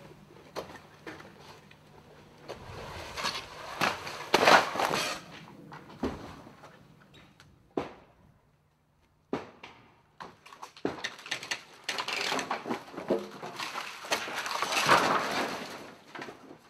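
Demolition of a wood-frame house: repeated knocks and clatters of lumber being pried apart and thrown onto the debris pile. There are two longer, louder stretches of crashing and scraping, a few seconds in and again near the end, separated by a brief silence.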